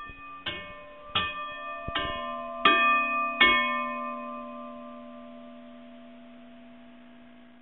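A bell-like chime of five struck notes about three-quarters of a second apart, the last two the loudest. A low note then rings on and fades slowly.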